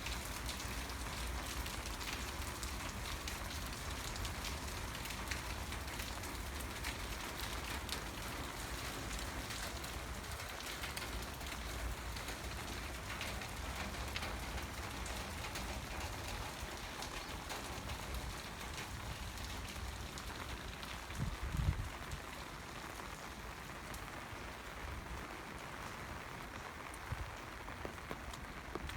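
Steady rain falling on surfaces, an even hiss dotted with many small drop ticks. About two-thirds of the way through, a brief low thump stands out as the loudest sound, and the rain is a little quieter after it.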